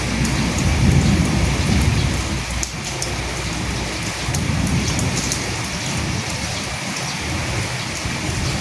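Steady heavy rain hissing, with the fine patter of drops striking a surface. A low rumble swells in the first few seconds and again around the middle.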